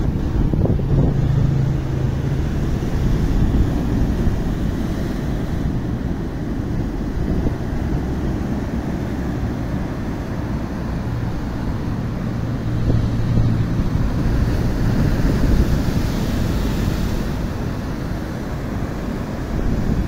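Rough sea surf breaking and churning against rocks and a concrete tetrapod breakwater, heavily buffeted by wind on the microphone, with a louder wash of surf about three-quarters of the way through.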